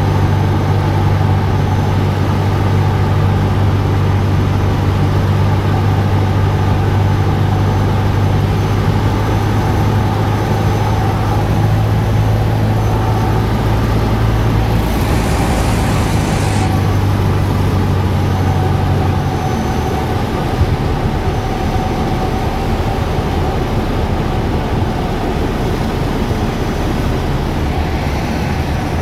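Cessna 172's piston engine and propeller droning steadily. There is a brief hiss about fifteen seconds in, and the low drone weakens about twenty seconds in.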